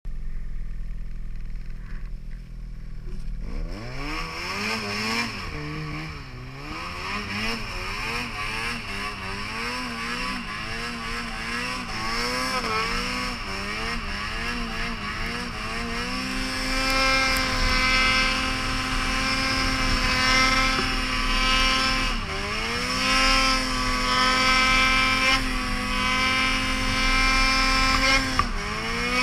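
Ski-Doo snowmobile's two-stroke engine, fitted with an RK Tek 860 big-bore kit, idling low for the first few seconds, then revving up and down repeatedly under throttle, and from about halfway holding steady high revs with two brief dips near the end.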